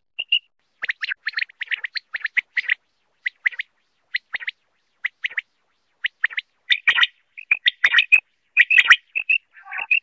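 Quail (batair) calling: short, sharp call notes, often in quick pairs, repeated with brief gaps. The calling is sparser in the middle and grows denser and louder over the last few seconds.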